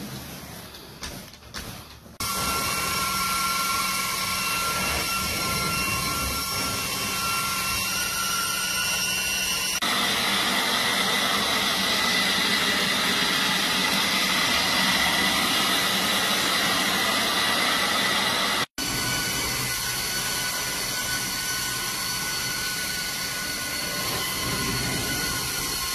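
A carpet grooming brush scratches over carpet for a couple of seconds. Then a hot-water extraction carpet cleaner's vacuum starts running loud and steady, with a hiss and several high whistling tones, as the cleaning wand is drawn across the carpet.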